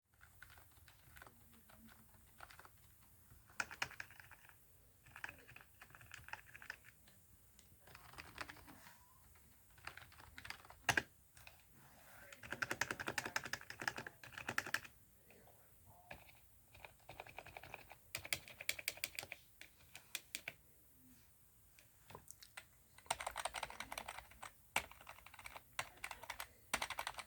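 Keys of a Dell keyboard being typed in quick bursts with short pauses between them. The keys are lubricated with VapoRub, and one unlubricated key, F11, is pressed among them.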